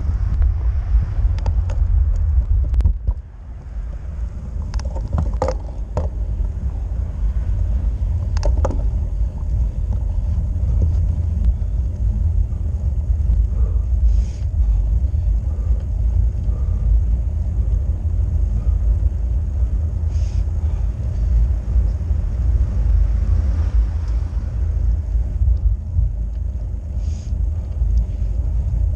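Wind buffeting the microphone of a bike-mounted action camera on a road bike: a steady low rumble, with a few sharp clicks and knocks in the first nine seconds.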